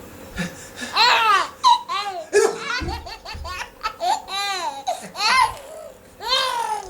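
Baby laughing loudly in a run of high-pitched bursts, each rising and falling in pitch.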